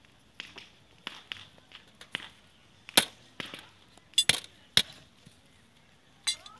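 Hand hammer striking a thin aluminium patch disc held on an iron stake anvil, shaping the patch for a leaking aluminium pot's bottom. The blows are sharp metallic knocks at an uneven pace, loudest about halfway through, with a quick run of blows just after.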